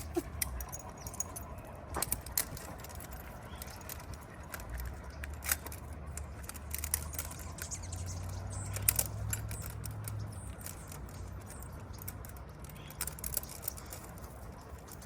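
Collar tags and leash clips of a pack of walking dogs clinking in scattered light clicks, over a low rumble that swells about eight to ten seconds in.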